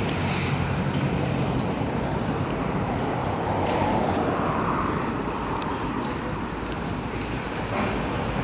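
Steady rumble of distant road traffic, with a few faint ticks.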